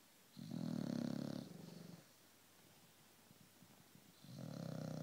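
A dog snoring in its sleep: two long snoring breaths about four seconds apart, the first about half a second in and the second starting near the end.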